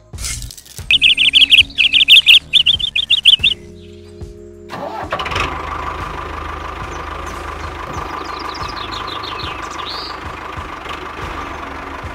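Loud, rapid bird chirping in three quick runs. About five seconds in, the miniature model tractor starts up and runs steadily with an engine drone and a high whine.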